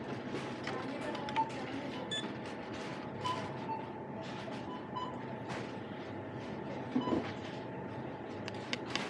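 Store ambience at a self-checkout: a steady hum with faint background music and scattered light clicks and knocks.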